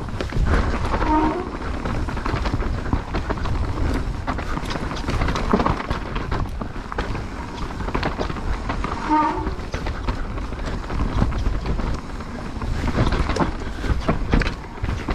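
Mountain bike descending a rough trail: tyres rolling over dirt and stones with a constant clatter and rattle of the bike, over a low rumble. Two brief squeaks, about a second in and about nine seconds in.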